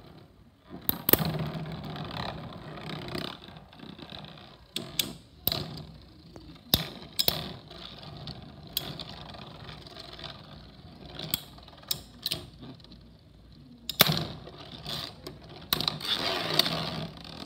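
Two metal-wheeled Metal Fight Beyblades, Death Quetzalcoatl and Phantom Orion, spinning in a plastic stadium, whirring and scraping across its floor. They collide with many sharp clacks. The scraping is loudest just after the start and again near the end.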